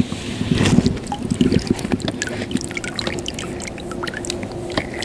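Water trickling and dripping from a landing net just lifted from the water with a small fish in it, with sharp ticks and rustles of handling and a louder splashy burst about half a second in.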